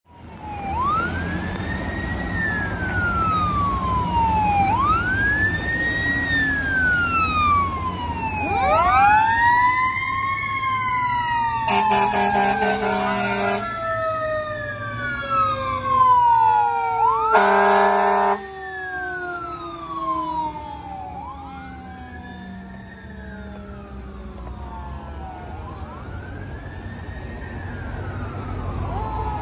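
Fire engine siren wailing, each cycle rising quickly and falling more slowly, with a second overlapping siren tone as the truck passes. Two loud horn blasts a few seconds apart, the second shorter, sound over the engine rumble.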